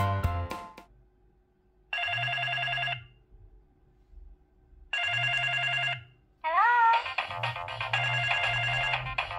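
Samsung SGH mobile phone receiving an incoming call: two buzzing pulses of about a second each, then from about two-thirds of the way in its ringtone plays, a melody of rising notes.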